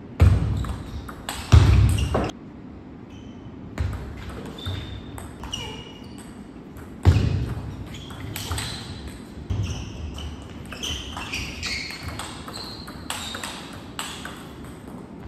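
Table tennis rally: the celluloid ball clicking off the rubber paddles and the table in quick exchanges. The loudest knocks come just after the start, about a second and a half in and about seven seconds in. Sneakers squeak on the sports floor now and then.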